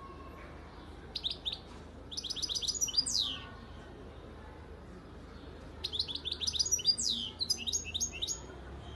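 Caged European goldfinch singing: two bursts of song, each a fast run of sharp notes and quick downward-sweeping notes, with a pause of about two seconds between them.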